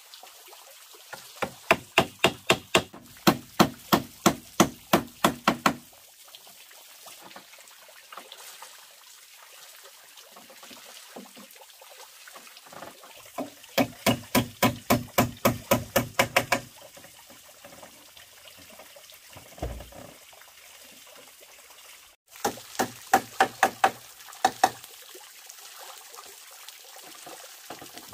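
Hammer driving nails into a wooden chair in three quick runs of blows, about three a second, the last run shorter. A steady trickle of water runs into the pond underneath.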